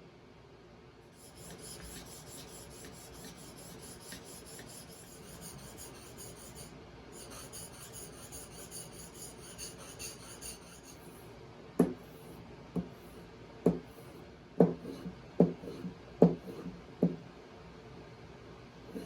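A hand rasp or file scraping in steady strokes for about ten seconds. Then about eight sharp knocks follow, roughly one a second, like a hammer tapping.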